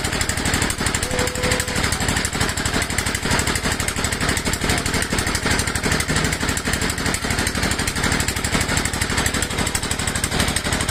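A small engine running steadily with a fast, even pulse that does not let up.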